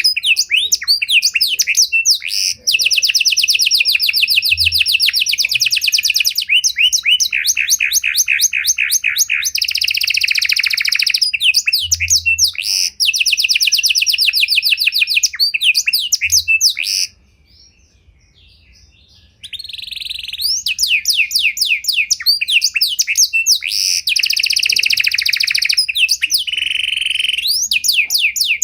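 Pied ('panda') domestic canary singing a long, varied song of rapid trills and rolls, each phrase a fast run of repeated notes, with a break of about two seconds a little past the middle.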